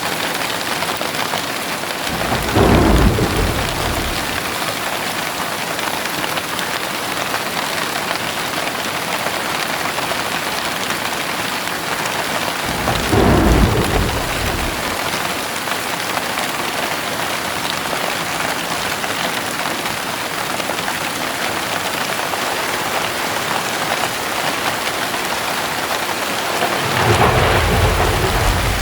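Steady heavy rain with thunder rumbling three times: once about two seconds in, again around the middle, and a longer rumble building near the end.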